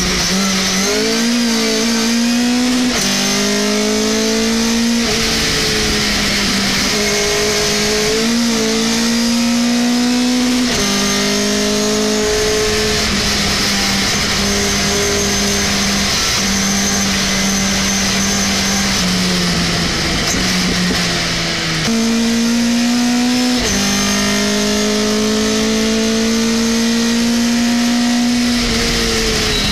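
Race pickup truck's engine heard from inside the cab at full racing pace, revving up through each gear and dropping sharply in pitch at every upshift. About two-thirds through it eases off and falls in pitch through the downshifts for a corner, then climbs again.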